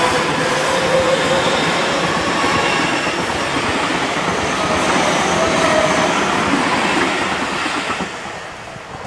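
Seibu 30000 series electric train running past at close range: a loud, dense rumble of wheels on rail with a few thin squealing tones. It fades as the train draws away, about eight seconds in.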